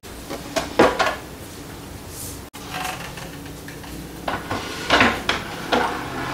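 Knocks and clatter of a portable gas stove being handled: a couple of sharp knocks about a second in, then a run of knocks as it is pushed onto a wooden shelf.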